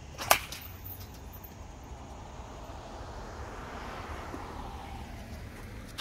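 A bat strikes a baseball once, a sharp crack with a brief ring, about a third of a second in. A faint, broad rushing noise swells and fades in the background between about two and five seconds.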